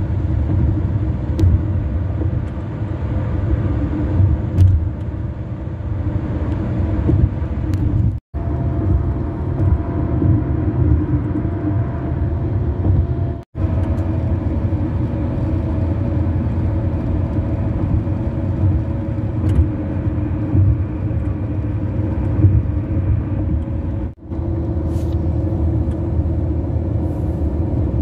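Car tyres running at highway speed on grooved concrete bridge and highway pavement, heard from inside the cabin: a steady low rumble with a faint hum above it. The sound cuts out briefly three times where separate clips are spliced together.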